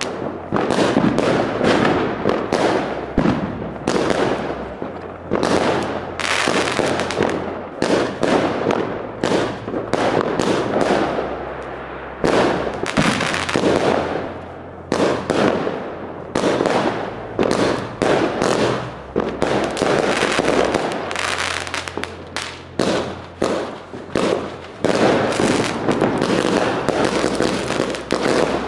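Consumer firework batteries firing a rapid, irregular run of shots, each tube's launch followed by an aerial burst, several a second, with a brief lull about twelve seconds in.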